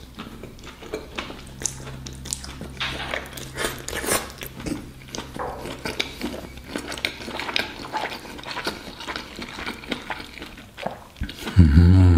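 A person chewing a mouthful of spaghetti close to the microphone: irregular wet mouth clicks and smacks. Near the end, a short, louder voiced sound breaks in.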